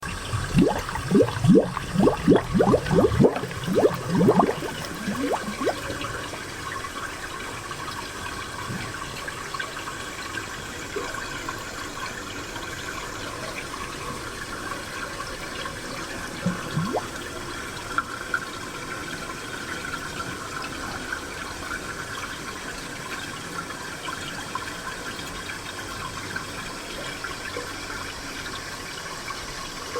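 Spring water flowing and gurgling, with a quick run of loud bubbling plops in the first five seconds or so, then a steady trickling babble with an odd plop now and then.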